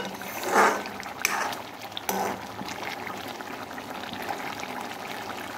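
Fish curry simmering and bubbling in an aluminium kadai. A ladle stirs and scrapes against the pan a few times in the first two seconds or so; the loudest scrape comes about half a second in.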